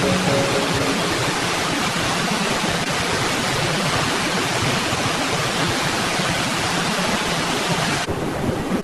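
Steady rush of fast-flowing floodwater, an even roar without pitch that cuts off suddenly near the end.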